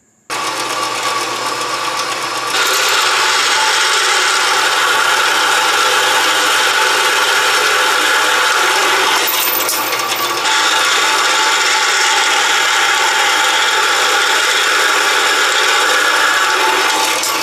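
Metal-cutting bandsaw running and sawing through a steel nail used as a drive pin. It comes in abruptly and gets louder about two and a half seconds in.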